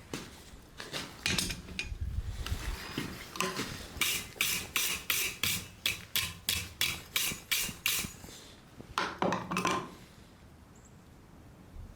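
Hand hammer striking hot steel on an anvil. There are a few scattered blows, then a quick, even run of about a dozen strikes at roughly three a second, and a few more blows a little later.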